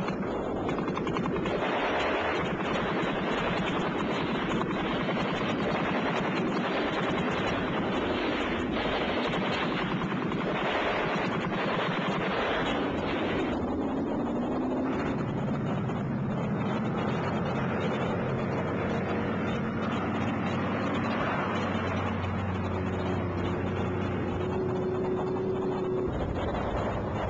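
Rapid automatic gunfire, a dense stream of shots for about the first half. It then gives way to a steady low drone with held tones.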